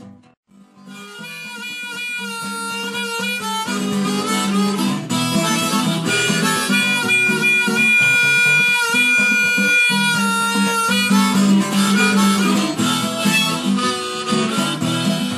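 Harmonica solo, played from a neck rack over strummed acoustic guitar. It starts after a brief gap and holds one long high note about halfway through.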